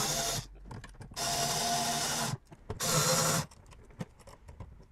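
Cordless electric screwdriver driving the mounting screws of a wall switch into its electrical box. The motor whines in three short runs: a brief one at the start, then two runs of about a second each.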